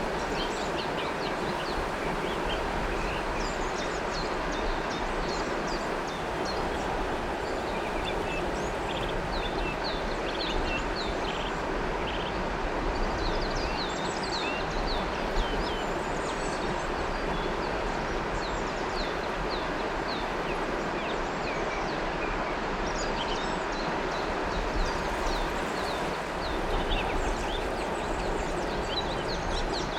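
River water flowing in a steady rush, with many birds chirping over it in short, quick calls throughout.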